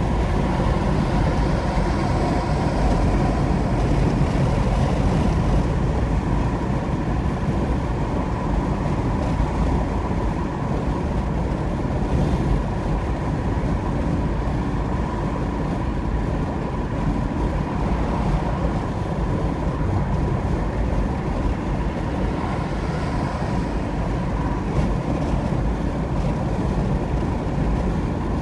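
Steady engine and tyre noise of a car driving at highway speed, even throughout, with a faint steady tone riding above it.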